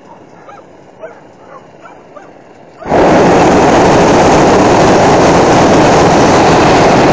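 Hot-air balloon's propane burner firing: after a few seconds of quiet carrying faint animal calls from the ground below, the burner cuts in about three seconds in with a sudden, loud, steady blast that keeps going.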